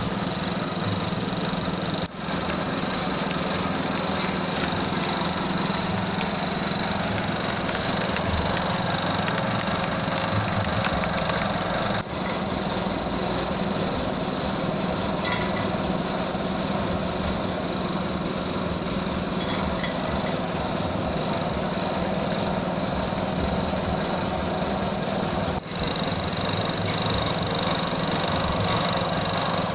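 Peanut skin-peeling machine running: a steady motor hum under a dense, even noise, with three brief dips.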